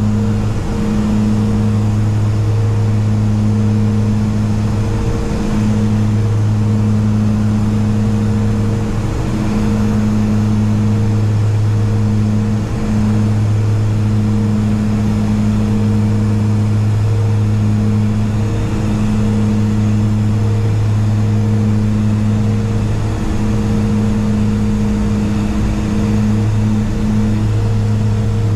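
The BAe Jetstream 32's twin Garrett TPE331 turboprop engines and propellers running steadily in flight, heard from inside the cockpit as a loud, deep hum over a hiss of airflow. The low hum briefly dips and returns every few seconds.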